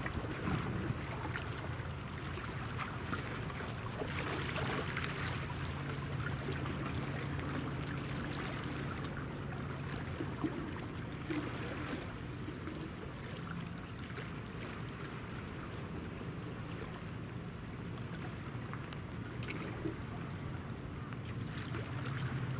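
Low steady hum of the gas-turbine helicopter destroyer Kaga's engines carried across open water, swelling a little at times. Under it runs a continuous hiss of wind and small waves.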